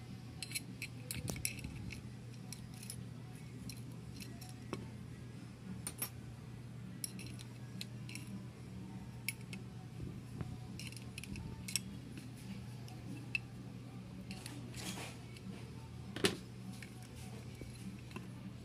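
Scattered light metallic clicks and clinks of hand tools working on the parts of a distributor being taken apart, with one sharper click about sixteen seconds in, over a steady low hum.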